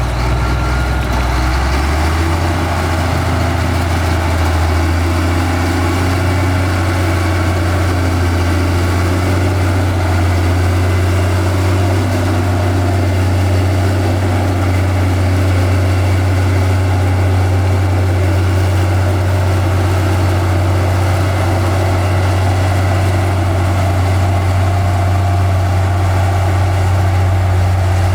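Heavy diesel engine of earthmoving machinery running steadily with a low, even drone that settles about two seconds in.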